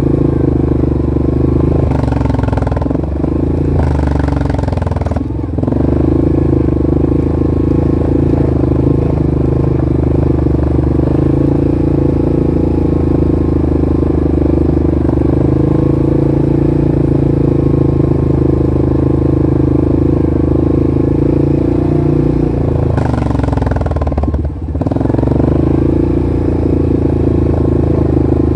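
Vehicle engine running steadily at cruising speed on an off-road trail ride. Its note shifts briefly and dips twice, about five seconds in and again near the end, as the throttle is let off and picked back up.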